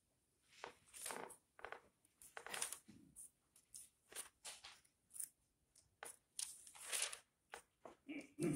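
Hymnal pages being turned: a string of short, crisp paper rustles at an irregular pace.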